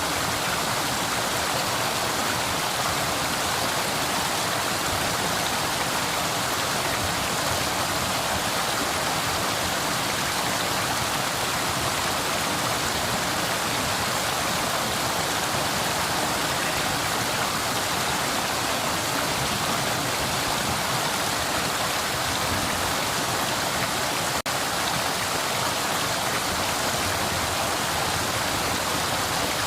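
River water flowing steadily, a continuous rushing of water over stones, with one split-second dropout about three quarters of the way through.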